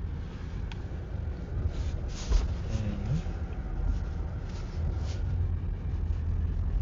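Low, steady road rumble inside a car's cabin as it drives, with a few light knocks, the loudest about two seconds in.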